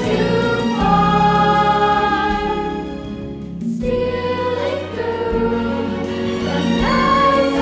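Children's choir singing held notes over an instrumental accompaniment with a steady bass line. The music briefly thins out about three and a half seconds in, then carries on.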